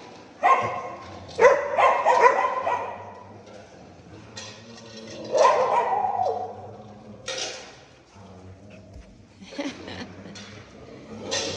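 Dogs barking and yelping in short loud bursts, several times over, with a low steady hum underneath.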